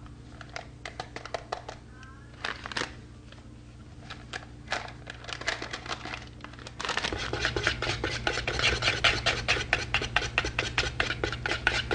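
Electric hand mixer beating milk and chocolate pudding mix in a bowl, the beaters rattling. The motor runs with a low hum and scattered clicks at first. About seven seconds in it becomes louder and busier, with a dense rapid clatter over the hum.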